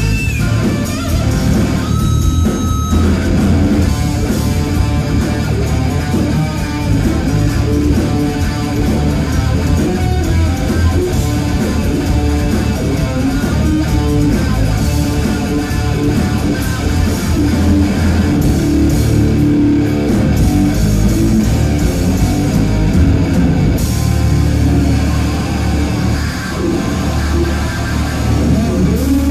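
Live hard rock band playing loud electric guitars, bass guitar and drums, heard from within the crowd.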